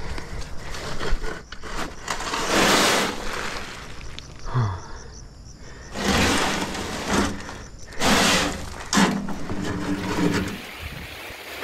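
Empty wheelbarrow rattling and clattering as it is pushed over a rough dirt path, with several louder jolts of clatter as it bumps along.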